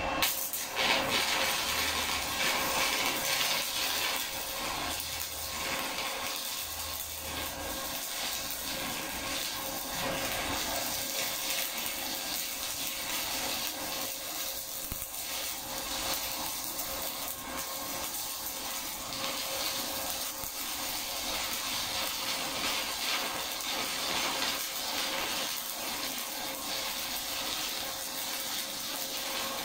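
Stick (shielded metal arc) welding arc struck and held, crackling and sizzling steadily as a zigzag weave bead is run on flat steel plate, with a steady hum underneath.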